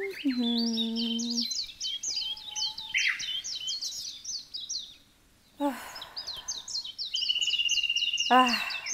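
Songbirds chirping in quick repeated calls, with a held low note near the start and a steady high trill near the end that ends in a tone sliding down in pitch.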